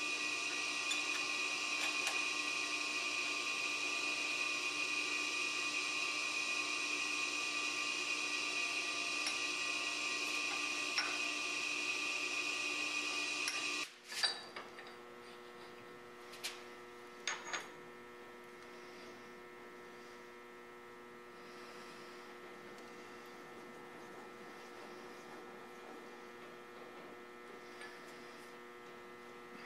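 Vertical milling machine's spindle running with a steady whine, cutting off suddenly about halfway through. A quieter low hum follows, with a few light metal clicks as the workpiece in the vise is handled.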